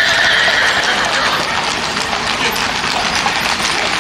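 Horses pulling sulky carts trotting fast on a paved road: a rapid, dense clatter of hooves.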